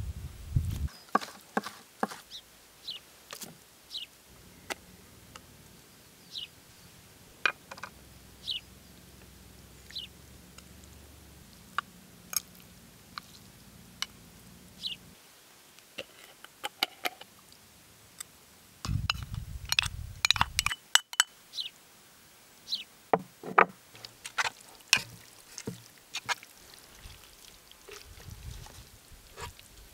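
Food preparation on a wooden cutting board: a knife knocking and scraping on the board, and chopped fat, dried chives and shredded dried meat tipped into a wooden bowl, making scattered sharp clicks and knocks. Short high chirps come every few seconds.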